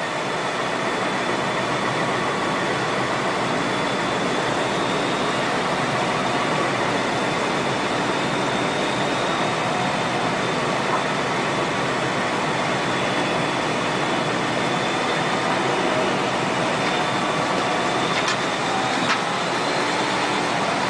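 Heavy wheel loader's diesel engine running steadily under load, a dense noisy drone with a faint high whine over it.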